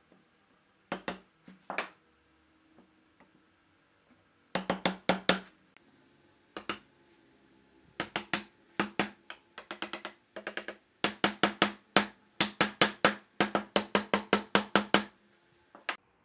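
Hammer blows on wood: a few single strikes, then quick runs of blows at about four or five a second, each with a short wooden ring.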